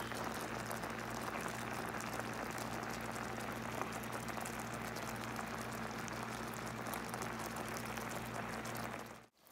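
Sugar syrup with coconut pieces boiling in a frying pan over low heat: a steady bubbling fizz of many small pops as the water boils off and the syrup thickens toward caramel. It cuts off abruptly near the end.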